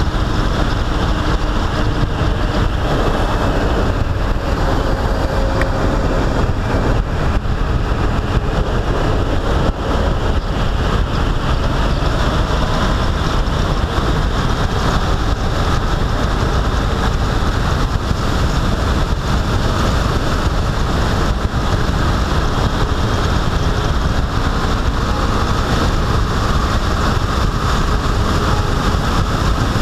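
Loud, steady rush of wind on the microphone with the road and engine noise of a vehicle travelling at speed underneath.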